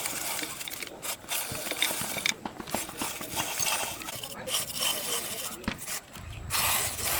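Irregular hand scraping and rubbing strokes, like a tool or abrasive worked over a surface. A steady low hum starts near the end.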